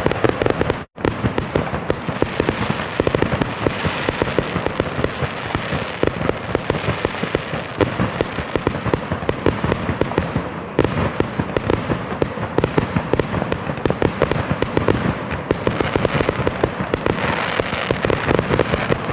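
Fireworks going off in a dense, continuous barrage of crackling pops and bangs, with a momentary break in the sound about a second in.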